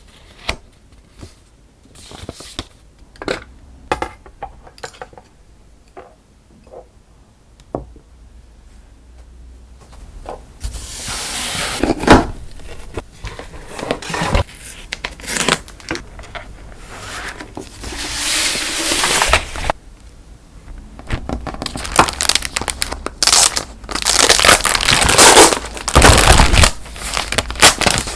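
Paper being handled and folded: a few light taps and rustles at first, then from about ten seconds in long spells of loud crinkling and rustling paper.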